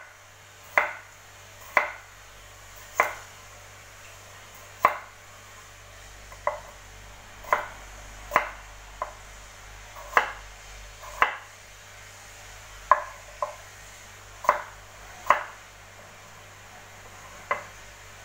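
Knife chopping on a cutting board: about fifteen separate sharp chops at an uneven pace, roughly one a second.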